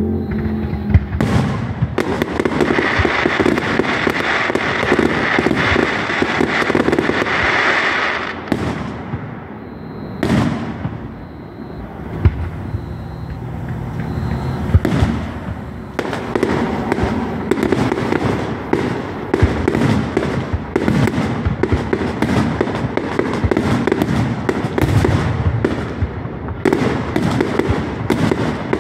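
Aerial fireworks display: a dense run of bangs and crackling thins out about a third of the way through to a few single loud booms, then builds again into a continuous barrage of bangs and crackle.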